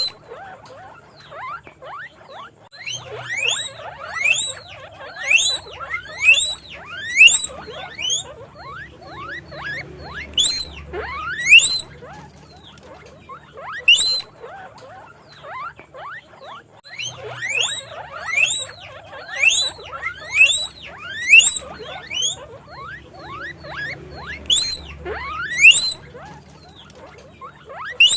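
Guinea pigs squeaking: loud, rising, whistle-like squeaks about once a second in two long runs, with fainter chirping squeaks between them.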